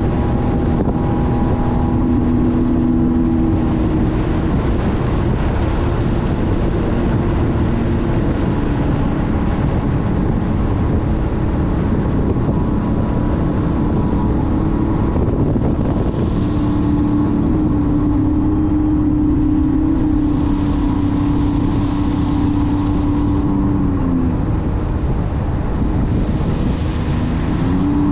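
Sea-Doo personal watercraft engine running steadily at cruising speed, with wind noise on the microphone. The engine note rises slightly partway through, dips for a few seconds near the end, then picks up again.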